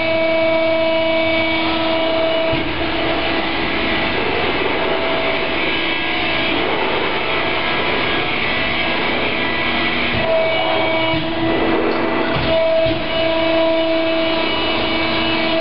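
Cincinnati 175CB10 CNC hydraulic press brake running: its motor and hydraulic pump give a steady whine over a rushing mechanical noise. The whine breaks off and returns a few times in the second half.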